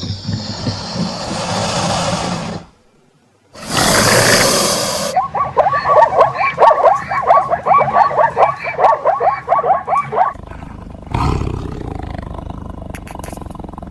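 A series of wild-animal sound clips. There are loud roars, and in the middle a run of rapid, repeated high calls at about four a second.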